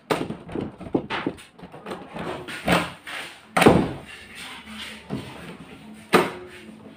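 A wooden door with a newly fitted doorknob being pushed shut against its frame, giving a series of knocks and latch clicks. The loudest thud comes about three and a half seconds in, and a sharp click comes near the end.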